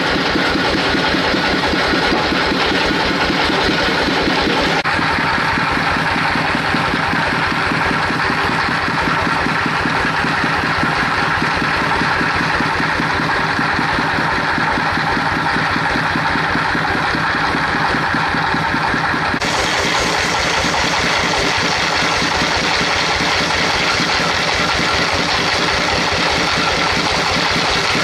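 Engine powering a band sawmill, running steadily with a fast, even chugging. The sound shifts abruptly about five seconds in and again near twenty seconds.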